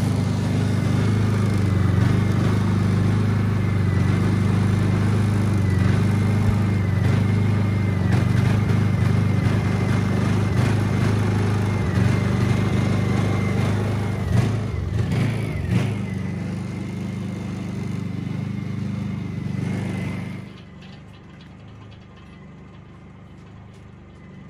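Honda portable inverter generator running with a steady hum. About two-thirds of the way through its sound wavers briefly and then carries on quieter, and near the end it drops away suddenly to a faint background.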